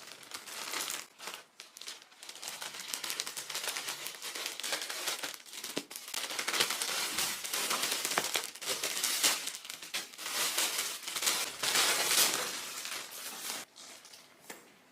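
Packaging crinkling and rustling as a parcel is handled and unwrapped, a busy stream of crackles and rustles that dies away near the end.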